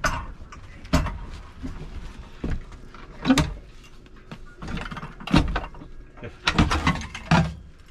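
Knocks and clunks of equipment being handled in a fire engine's rear crew cab, as the oxygen bottle is brought out: a string of short thumps about a second apart.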